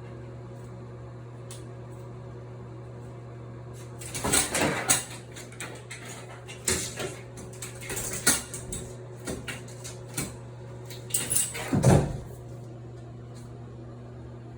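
A run of irregular knocks and clatters, loudest about four, eight and twelve seconds in, over a steady low hum.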